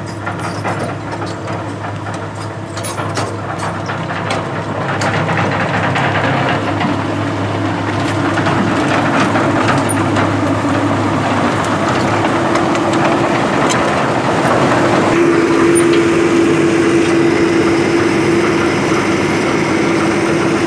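Komatsu hydraulic excavator's diesel engine running steadily, getting louder about five seconds in. A steady droning tone grows much stronger about three-quarters of the way through.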